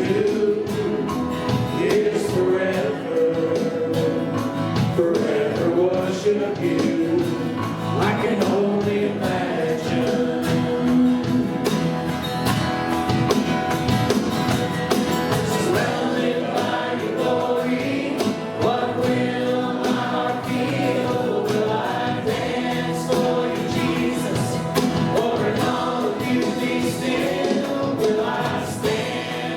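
Church worship band and singers performing a slow contemporary worship song, with sung melody over steady instrumental accompaniment.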